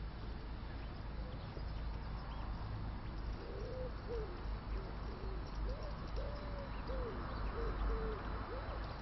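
A pigeon cooing: a run of soft, low hooting notes that rise and fall, starting a few seconds in, over a steady low rumble.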